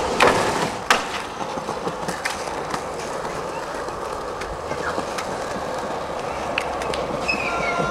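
Skateboard trick: two sharp clacks of the board's pop and landing about a second in, then the skateboard's wheels rolling steadily over concrete pavement, with small clicks as they cross seams and cracks.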